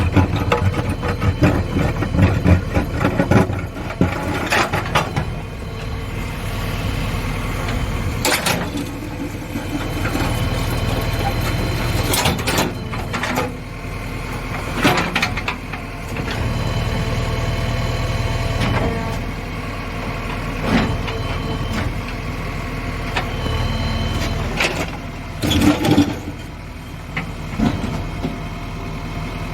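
JCB backhoe loader's diesel engine running, its level rising and falling in stretches as it works, with sharp knocks scattered through.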